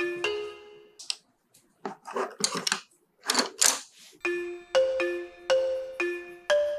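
Background music: a melody of struck, chime-like notes, about one every half second. It breaks off for roughly three seconds in the middle, where a few bursts of rustling noise come instead, and then starts again.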